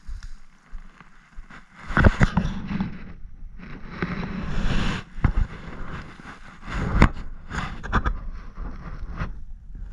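Rustling and crunching in dry grass and brush, with several sharp snaps, the loudest about two seconds in and about seven seconds in, over wind buffeting the microphone.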